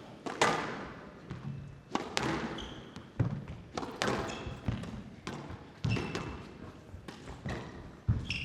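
Squash rally: sharp knocks of the ball off rackets and court walls, about one every half second to a second, with short high squeaks of court shoes on the floor.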